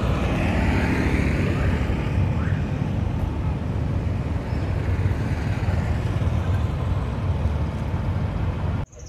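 Steady low rumble of road traffic going by, cutting off suddenly near the end.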